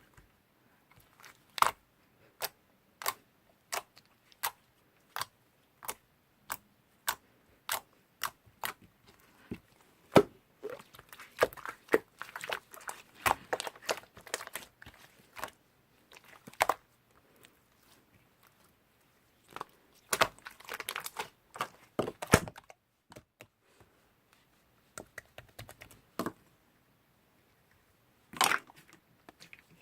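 Irregular sharp clicks and crackling pops, some single and some in quick clusters, with a louder crackly burst near the end.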